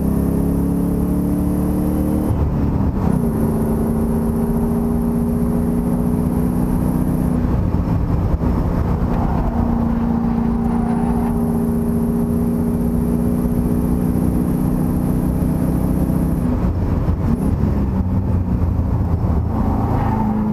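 Engine of the Mopar-engined Fairlady race car running hard at speed, heard from inside the cabin, its note breaking briefly a couple of seconds in and again near the end as the car slows for a corner.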